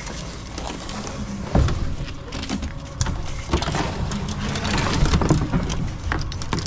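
Rustling and handling noise from a jostled handheld camera, with scattered clicks and a few heavier knocks.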